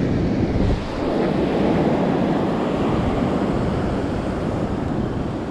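Surf breaking and washing on the beach, a steady rushing noise, with wind buffeting the microphone.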